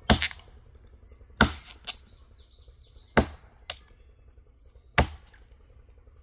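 Vintage Craftsman axe chopping the face-cut notch into a standing cherry trunk: four sharp strikes about every second and a half, most with a lighter knock just after.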